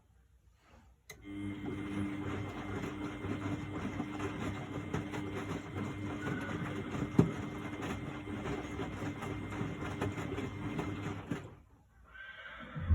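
1999 Miele Novotronic W828 front-loading washing machine starting up about a second in and running with a steady hum for about ten seconds, then stopping abruptly; a shorter sound and a single thump follow near the end.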